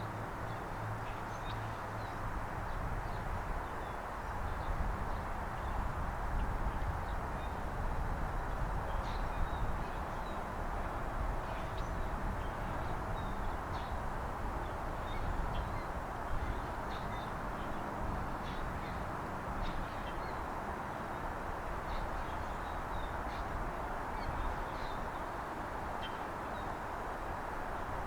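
Wild birds calling, with short high chirps scattered throughout, over a steady background hiss and low rumble.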